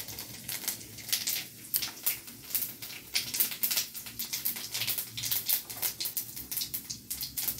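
Cumin seeds crackling in hot oil in a kadai, a quick, irregular patter of small sharp pops as the seeds temper.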